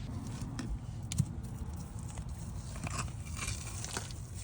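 Scattered crunches and scrapes of digging in soil full of roots around a buried sprinkler head.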